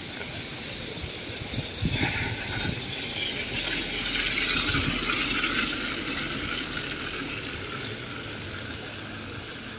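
Rain on a wet street, with the hiss of tyres on the wet road swelling a couple of seconds in and slowly fading away.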